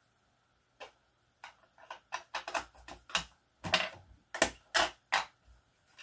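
Ink being worked onto the edges of a paper card: about a dozen short, scratchy strokes and taps at an irregular pace, growing louder after the first few.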